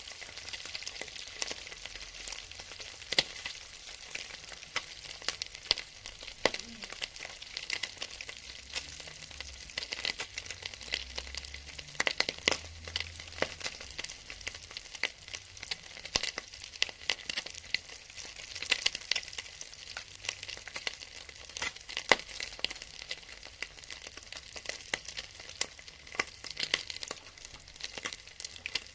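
Fat frying in a hot pan: a steady sizzling hiss with many sharp pops and crackles.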